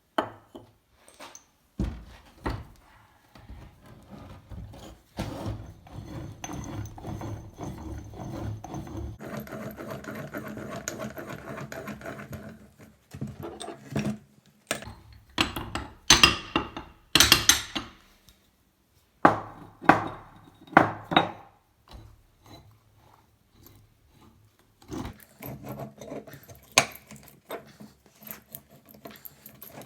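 Hand tools working on a rusted, seized steel bench vise: a series of sharp knocks and clanks, with a long stretch of scraping or rubbing about a third of the way in.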